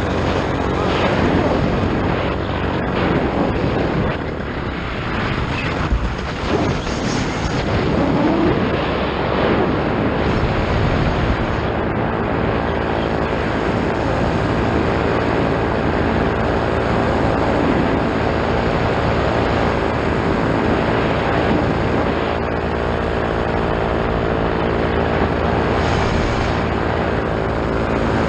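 Paramotor trike's Vittorazi Moster two-stroke engine and propeller running steadily in flight, with a brief dip in level about four to six seconds in.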